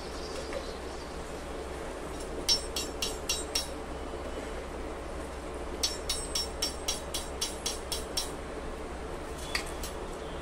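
A wire skimmer tapped against the rim of a frying pan in quick runs of metallic clicks, about four a second, shaking the oil off a scoop of fried sweet potato fries, over a steady sizzle of hot oil.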